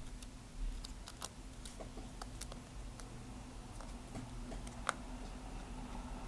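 Faint scattered clicks and taps of small tools and tiny parts being handled while reassembling an iPhone 5s, with one sharper click about five seconds in, over a steady low hum.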